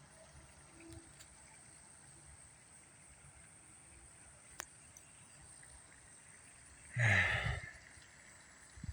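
Quiet outdoor background with a faint, steady high-pitched tone, a single tick about four and a half seconds in, and a short burst of noise about seven seconds in; no siren is sounding yet.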